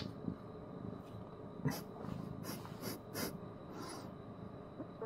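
A handful of short, breathy nasal snorts and sniffs close to the microphone, coming in a quick run about two to three seconds in.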